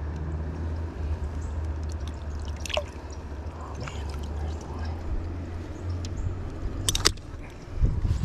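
Shallow river water sloshing and dripping around a landing net as hands work at a trout held in it, over a steady low rumble. A sharp click sounds about seven seconds in, followed by a low thump near the end.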